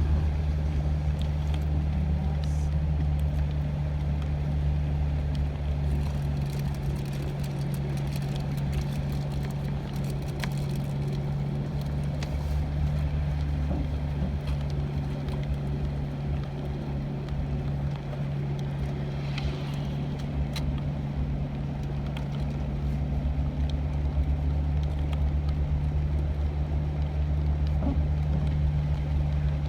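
A vehicle running steadily: a constant low engine drone with road noise.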